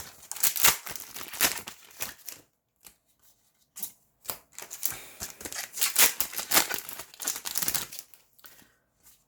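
Foil booster-pack wrappers being torn open and crinkled, in two bouts of rustling with a short pause between them.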